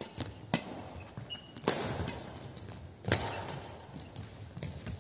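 Badminton racket strings hitting a shuttlecock three times in a rally, sharp cracks about a second apart that echo in a large sports hall. Short high squeaks of court shoes come between the hits.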